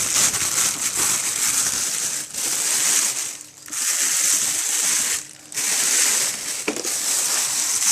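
Plastic packaging bag rustling and crinkling as it is pulled off a new upright vacuum cleaner, with two brief pauses in the handling.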